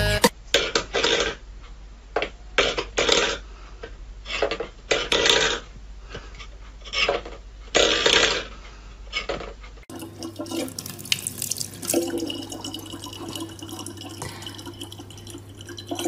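Short, irregular scraping and clattering noises of steel food bowls on a wooden floor. About ten seconds in, these give way to a kitchen tap running a thin steady stream of water into a plastic bottle.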